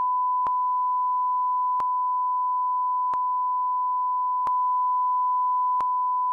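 A steady, unbroken electronic sine tone at one fixed pitch, with a faint click repeating about every second and a third.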